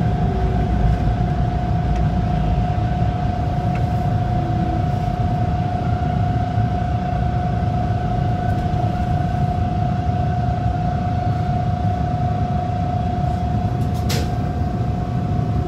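Bombardier T1 subway train running along a station platform and slowing, its wheels and running gear giving a steady rumble under a constant whine. A brief sharp hiss comes near the end, about when the train comes to rest.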